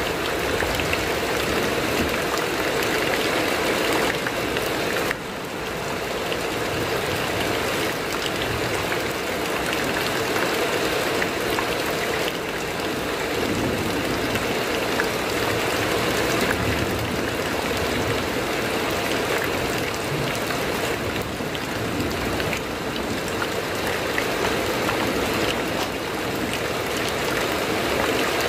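Heavy rain falling on a corrugated metal roof: a steady, dense hiss with scattered drop ticks, dipping briefly about five seconds in.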